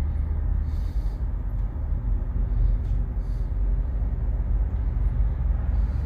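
Steady low rumble of a car's engine and tyres heard from inside the cabin while creeping along in stop-and-go traffic.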